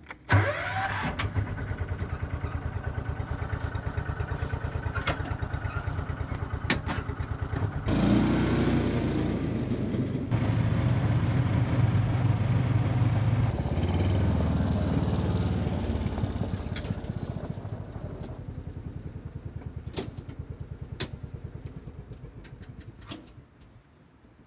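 John Deere Gator utility vehicle's engine starting and running with a quick, even pulse, then driving. It is louder from about eight seconds in and fades away near the end.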